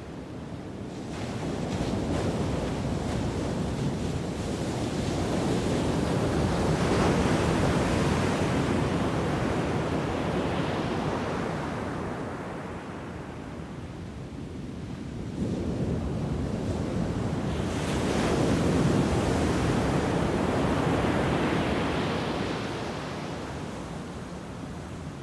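Ocean waves breaking on a shore, two waves in turn: the first builds from about a second in and washes out, the second breaks more suddenly about halfway through and then recedes.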